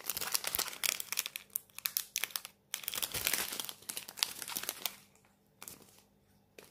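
Small plastic zip bags of diamond-painting drills crinkling as they are handled and swapped. The crackling stops about five seconds in, leaving a couple of faint clicks.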